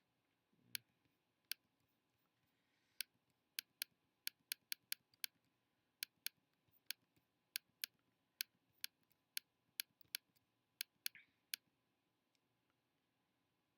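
Computer mouse clicking: about twenty sharp, irregular single clicks, some in quick runs, as spots are retouched with a brush tool.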